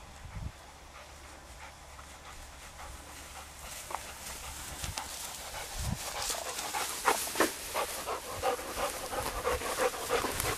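A dog panting rapidly, close by, starting faint and growing louder from about halfway in.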